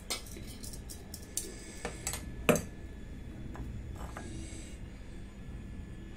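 Steel mesh tea strainer clinking and tapping against the rim of a glass tumbler: a scatter of sharp clicks, the loudest about two and a half seconds in.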